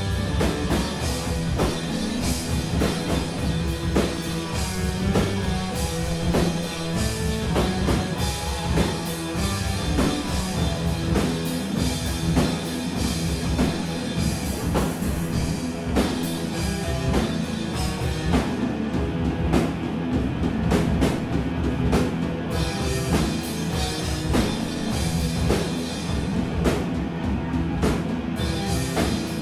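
A live rock band playing: electric guitar, drum kit and keyboard synth, with a steady drum beat throughout, recorded from the back of the room.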